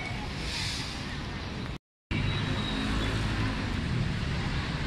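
Steady outdoor city street noise, a low rumble of distant traffic. It cuts out completely for a moment about two seconds in, then comes back slightly louder.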